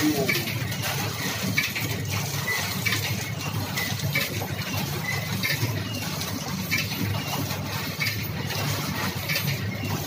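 Rusk cutting machine running, with a steady motor hum under frequent light, irregular clinks and clatters as hard toasted rusk slices drop onto its metal conveyor and table.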